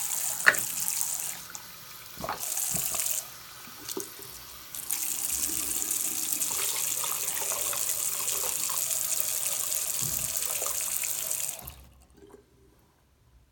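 Water running from a bathroom faucet into a sink and splashing as a large foam sponge is rinsed and squeezed under the stream, with a few small knocks. The water stops abruptly near the end.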